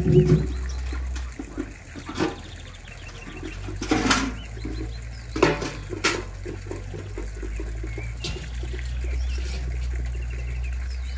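Several knocks and scrapes as buckets are handled, with birds chirping faintly.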